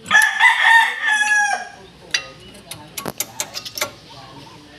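A rooster crowing once, a loud call of about a second and a half. It is followed by a quick run of sharp clicks.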